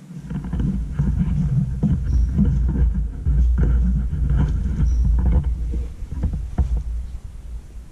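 Low rumble and buffeting on the camera microphone, with scattered clicks and rustles, starting suddenly and easing off near the end.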